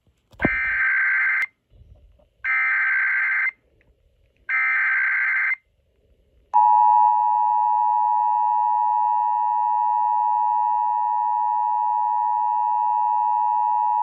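Emergency Alert System signal from an FM radio's speaker: three one-second bursts of data screech, a second apart (the digital SAME header encoding the alert), then the steady two-tone attention signal, which starts about six and a half seconds in. Together they announce a Child Abduction Emergency (Amber Alert) broadcast.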